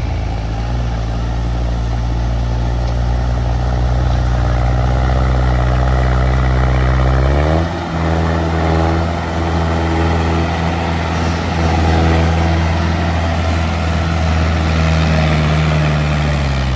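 Diesel tractor engine working hard while hauling a heavily loaded trolley, running steadily. About halfway through it revs up sharply and holds at a higher speed, then drops in pitch near the end.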